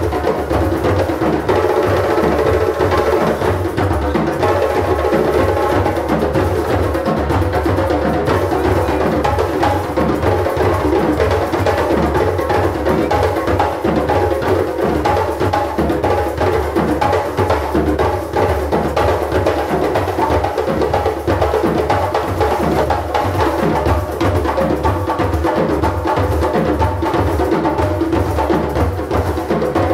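Djembe ensemble: several hand drums played together in a dense, unbroken rhythm.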